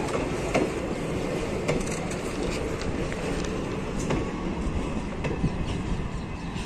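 A freight train's brake van (guard's van) rolling slowly past on the rails, with a steady rumble and its wheels clicking and knocking now and then. The train is being taken through at a slow, cautious speed over freshly repaired track.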